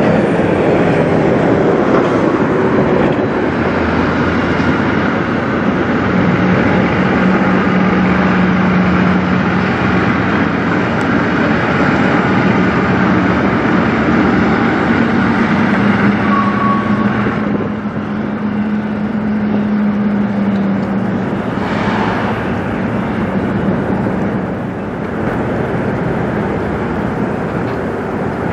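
Diesel semi-truck engines as tractor-trailers drive past, a steady drone with a low hum that rises slightly in pitch about halfway through. A brief sharp noise comes near the three-quarter mark.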